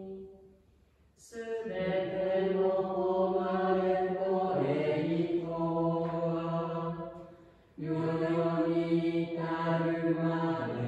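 Voices singing a slow church hymn in long held phrases: a short pause about a second in, then a long phrase and a brief breath before the next one near the end.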